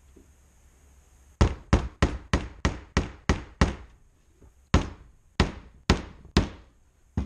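Claw hammer driving a finish nail into a small wooden block, tacking it down. A quick run of about eight strikes at roughly three a second is followed by a short pause and five slower blows.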